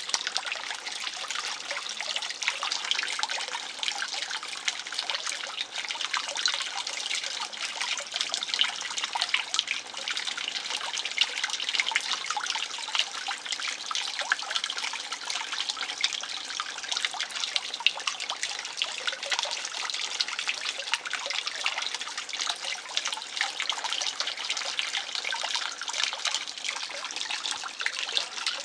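Water trickling and splashing steadily into a garden fish pond, a continuous fine patter that does not change.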